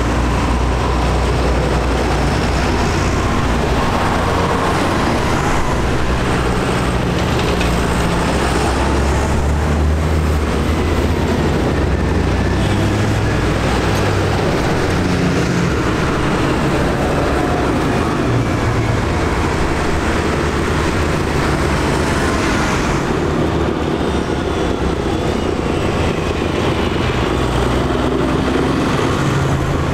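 A line of diesel farm tractors driving past one after another, several engines running at once with their pitches shifting as they go by, over steady tyre noise on a wet road.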